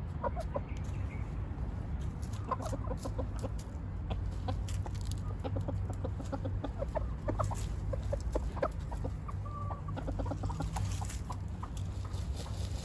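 Chickens clucking, many short soft calls scattered throughout, over a steady low rumble.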